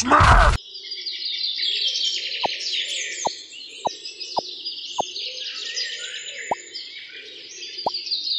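Small birds chirping and twittering in a dense, continuous chorus, with a short, sharply falling plip every half second to second. Before this, a louder sound cuts off about half a second in.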